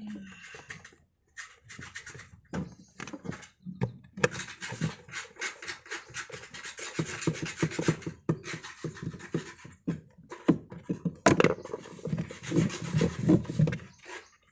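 Star (Torx) screwdriver working the washing machine gearbox's mounting screws loose: irregular scraping and rapid clicking of the metal bit in the screw heads, coming in runs with short pauses.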